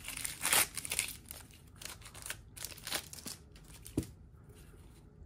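Wrapper of a 1991 Score baseball card pack being torn open and crinkled in several short bursts, then the cards being handled, with a single sharp click about four seconds in.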